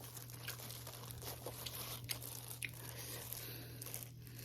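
Faint close-up eating sounds: soft bites and chewing of hotteok, the Korean sweet pancake filled with sugar and nuts, heard as scattered small clicks and smacks.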